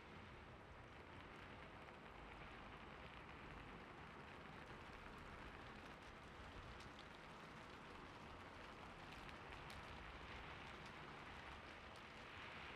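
Faint, steady gentle rain with a few scattered light ticks.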